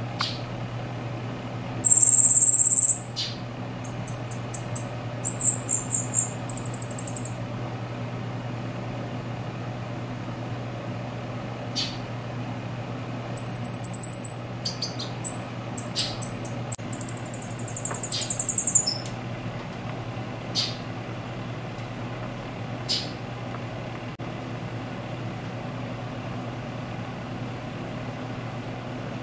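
A caged silil singing high, thin phrases. A first burst of rapid repeated notes comes in the opening seconds, and a second burst about halfway through ends in a trill, after which there are only a few soft chips. A steady low hum runs underneath.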